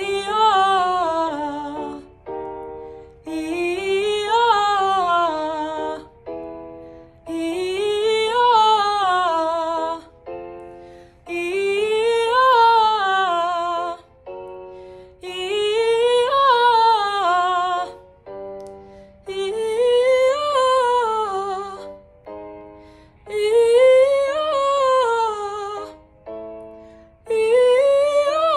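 A young woman's alto voice singing warm-up scales, each run climbing and falling back down. A keyboard gives a few held starting notes before each run, and each run starts a step higher than the one before, about seven times.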